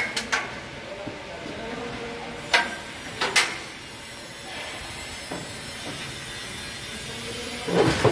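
Sharp knocks and clanks from work on a galvanized steel switchgear frame, over a steady hiss. There are two at the start, three in quick succession from about two and a half to three and a half seconds in, and a heavier thud near the end.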